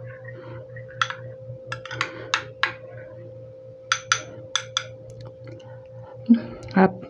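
Metal spoon clinking and scraping against a small glass bowl while stirring a thick mayonnaise-and-ketchup sauce, about a dozen sharp clicks at irregular intervals. A steady low hum runs underneath.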